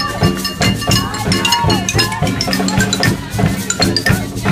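Street band playing percussive music: mallets striking a hanging rack of circular saw blades, which give short ringing metallic notes, over bass drum and cymbal beats and brass with a few sliding notes.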